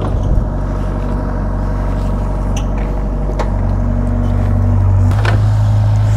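Doosan mini excavator's diesel engine running steadily under load while it digs, growing a little louder about four seconds in, with a few sharp knocks from the digging.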